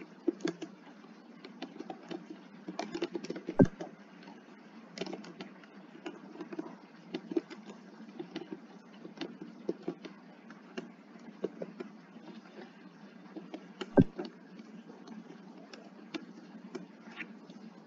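Typing on a computer keyboard: an irregular stream of key clicks, with two much heavier key strikes, one about a fifth of the way in and one near the end.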